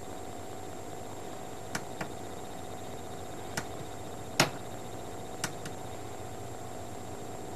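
Steady hum with a thin high whine, broken by a few short sharp clicks, the loudest about four and a half seconds in.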